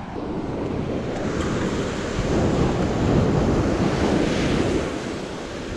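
Small waves breaking and washing up a stony beach, with wind buffeting the microphone. The wash swells from about two to four and a half seconds in, then eases.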